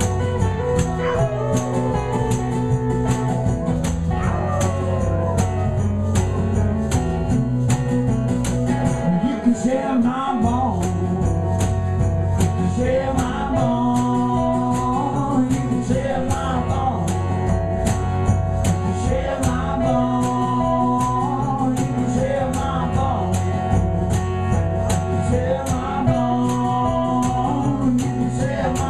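A live acoustic band playing, with acoustic guitar, a steady beat and a melody line that slides between notes.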